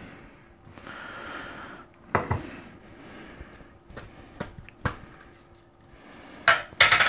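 Hand burger press being worked on a wooden cutting board while shaping a ground-beef patty: separate knocks and clicks as the press is pushed down, lifted and handled, with the loudest knocks near the end as the patty is taken out of it.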